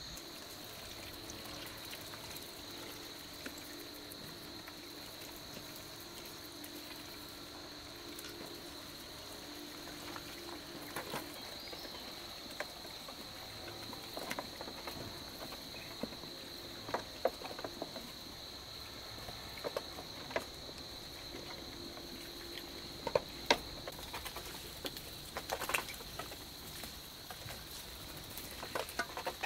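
Insects trilling steadily on one high note, with scattered light clicks and taps that come more often in the second half.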